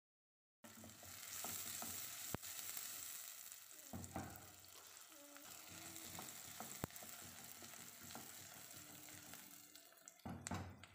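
Chopped onions sizzling as they fry in hot oil, stirred with a wooden spatula that scrapes through them and twice knocks sharply against the pot. The sizzle starts about half a second in.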